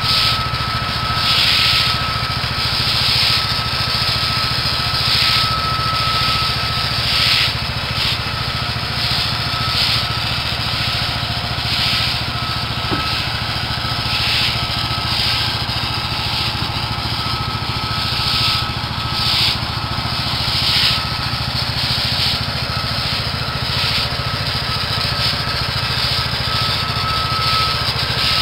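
Small gasoline engine of a pressure washer running steadily, with water spray hissing in repeated sweeps about every one to two seconds as a newly sanded paver patio is washed down.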